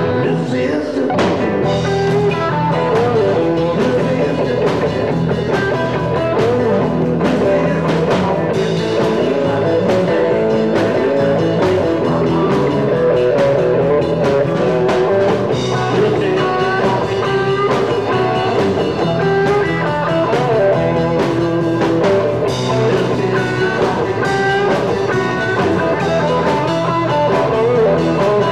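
Live rock band playing an instrumental passage: a lead electric guitar line over rhythm guitar, electric bass and drum kit, loud and steady.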